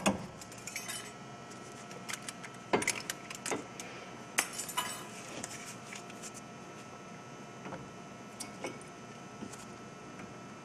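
Scattered short metal clinks and clicks, the louder ones in the first five seconds, as a brake caliper with its pads is handled and slipped over a drilled brake rotor.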